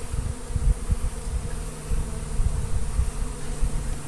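Honeybees buzzing steadily in a dense swarm around the hive box, with irregular low rumbles on the microphone.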